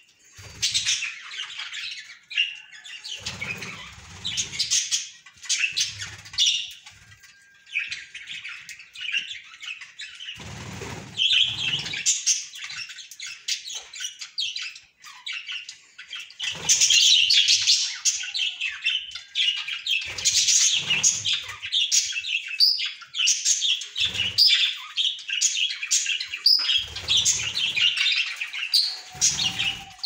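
A flock of budgerigars chattering with rapid high chirps and warbles, busier and louder in the second half, with occasional short low thumps.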